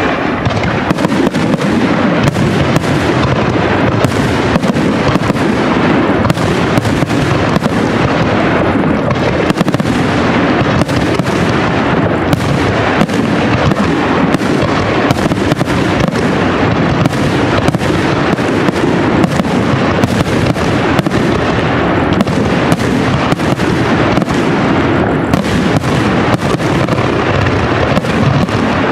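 Aerial firework shells bursting in a dense, continuous barrage: many overlapping bangs, about two a second, over a steady loud wash of noise.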